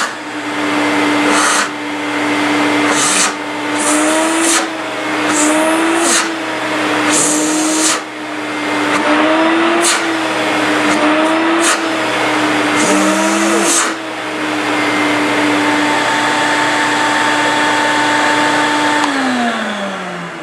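Makita 490 wet/dry vacuum running, its motor whine wavering in pitch, with repeated surges of rushing air at the nozzle. About nineteen seconds in it is switched off and the motor winds down in a falling whine.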